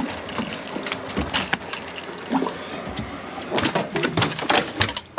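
Irregular knocks and bangs on a boat, with a few short bits of voice in between.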